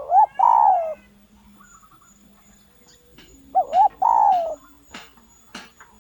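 Spotted dove cooing: two phrases about three and a half seconds apart, each two short coos followed by a longer falling coo. It is the call of a decoy bird, used to draw wild males in to fight.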